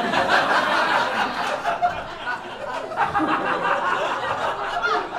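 Audience in a comedy club laughing at a roast punchline, loudest in the first two seconds, swelling again about three seconds in, then dying down.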